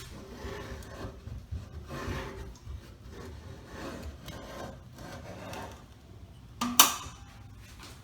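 Laminate and wood pieces rubbing and scraping against each other in a series of uneven strokes as stair pieces are worked into place, with one sharp knock a little before the end.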